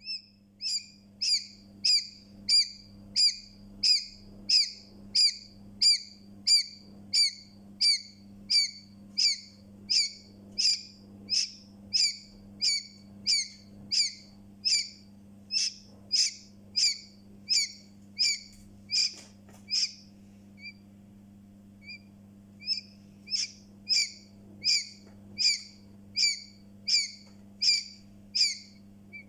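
Newborn chick peeping: loud, high-pitched peeps repeated about one and a half times a second, stopping for a few seconds about two-thirds through, then starting again. A steady low hum runs underneath.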